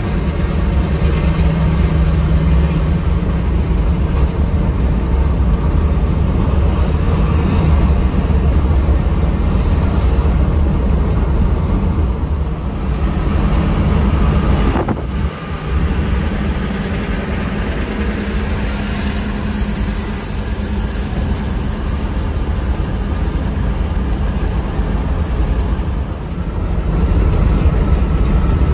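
Mercedes-Benz 1626 NG coach driving at speed on a highway, with a steady engine drone and road noise heard from the cab. The sound dips briefly about halfway through.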